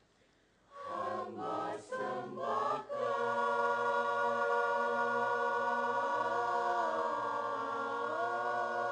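Mixed choir of men's and women's voices singing. After a short silence come a few brief clipped phrases, then from about three seconds in a long held chord, with one inner part moving up and down.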